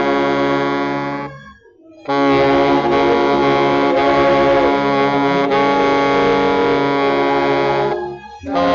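Baritone saxophone played loud, holding long sustained notes with a full, buzzy tone. It breaks off twice for short pauses, about a second and a half in and again near the end.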